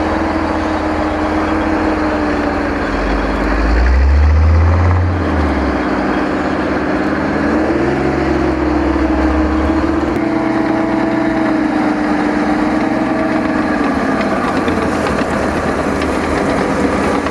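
Heavy military vehicle engine running, its pitch rising about a second in and again around eight seconds in, with a deep rumble that swells to its loudest around four to five seconds in.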